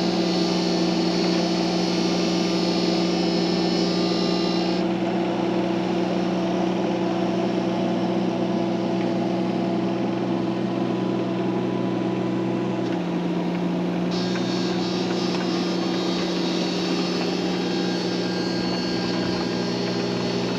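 An engine running steadily, with a high-pitched whine that drops out about five seconds in and comes back about fourteen seconds in.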